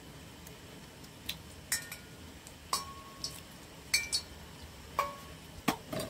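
Light clinks and taps of metal or glass kitchenware, about nine scattered strikes, some leaving a brief ringing tone.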